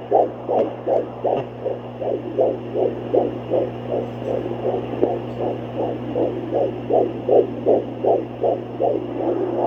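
Fetal heartbeat picked up by a handheld Doppler at almost 17 weeks of pregnancy: a fast, regular whoosh-whoosh of about two and a half to three beats a second, over the device's steady low hum. Near the end the beats blur into a more continuous whoosh.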